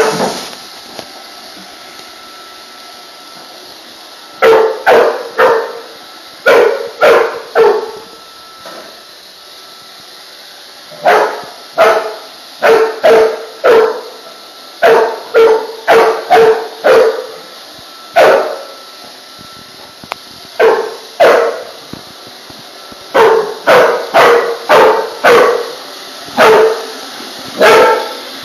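Pit bull barking loudly in bursts of two to four barks, with pauses of a second or more between the bursts.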